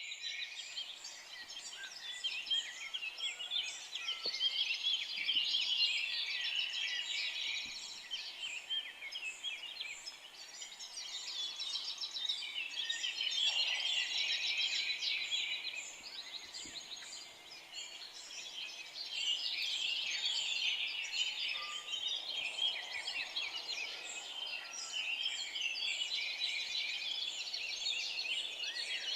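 Forest birdsong: many birds chirping and trilling at once in a dense, high chorus that swells and fades every few seconds.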